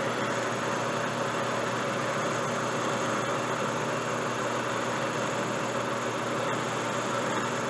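Large JET engine lathe running steadily, a continuous hum with several steady tones, its chuck spinning while a taper is turned in 1018 steel with light cuts.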